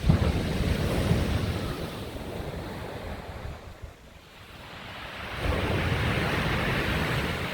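Sea surf on a beach with wind buffeting the microphone, a steady rush of noise with a deep rumble. It eases off about four seconds in and swells up again a moment later.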